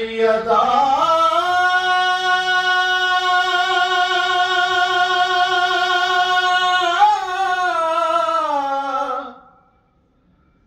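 A single unaccompanied voice sings one long drawn-out note in an Urdu devotional salam recitation. It rises into the note, holds it with a slight waver, lifts briefly near the seventh second, then glides down and stops about nine and a half seconds in.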